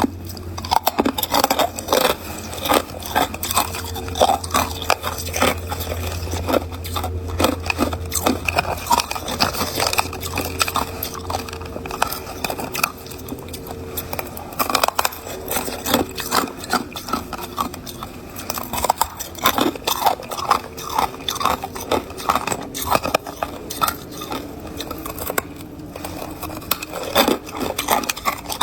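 A person biting and chewing ice close to the microphone: a dense, irregular run of sharp crunches and crackles as the ice breaks between the teeth.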